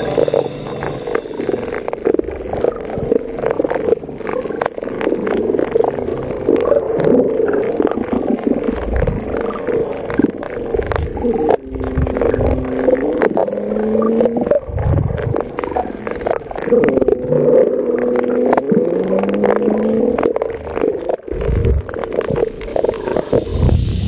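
Underwater ambience picked up by a camera on a reef: a dense crackle of short clicks over a low droning tone that wavers and rises in pitch a few times.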